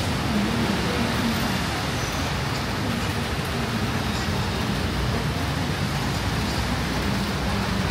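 Steady wash of heavy rain mixed with road traffic, with a low engine hum underneath.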